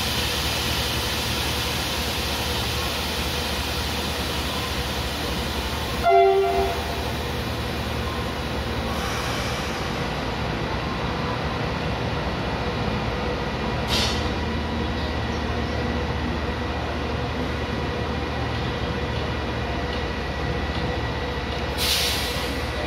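CC 300 diesel locomotive idling steadily, with one short horn blast about six seconds in and two brief bursts of air hiss later on.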